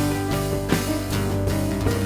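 Americana band playing an instrumental passage: guitar over a drum kit beat, with no singing.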